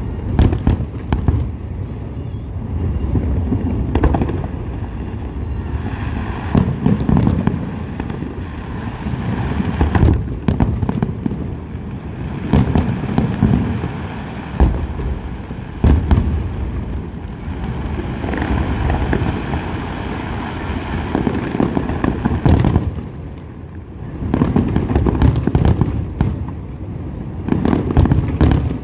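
Fireworks display: aerial shells bursting one after another in continuous deep booms, with many sharp cracks layered over them.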